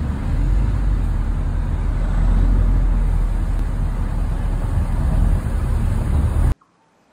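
Steady city street traffic noise, a dense low hum of passing cars and buses, which cuts off suddenly about six and a half seconds in.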